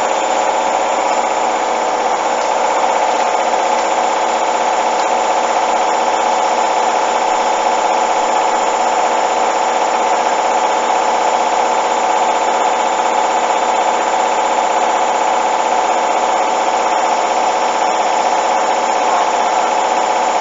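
Hoover front-loading washing machine spinning its drum at speed: a loud, steady motor whine over a constant rush of noise.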